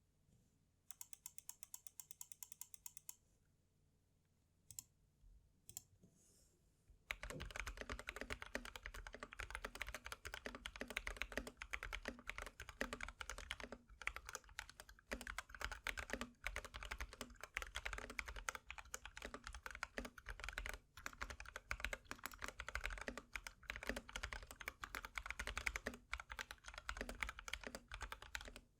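GK61X mechanical keyboard with lubed Holy Panda tactile switches, XDA-profile keycaps and an O-ring mount being typed on. First a fast, even run of key clicks lasting about two seconds, then a couple of single key presses, then continuous typing from about seven seconds in.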